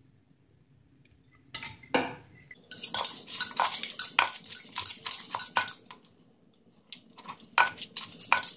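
Wooden pestle knocking and a metal spoon clinking and scraping in a clay mortar, pounding and mixing the seasonings for papaya salad. Quiet at first, then a dense run of rapid knocks and clinks for about three seconds, a pause, and a shorter run near the end.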